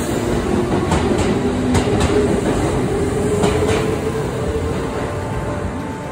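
Kintetsu electric train pulling out past the platform: traction motors whining, rising slowly in pitch as it gathers speed, with wheels clicking over the rail joints.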